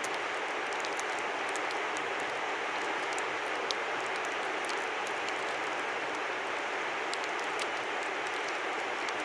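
Steady rushing of a river, an even noise that holds its level, with scattered faint small ticks and drips over it.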